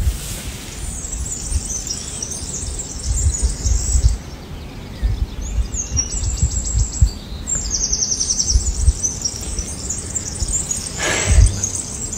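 Small birds chirping, with two quick runs of rapidly repeated trill notes in the middle, over irregular low rumbling.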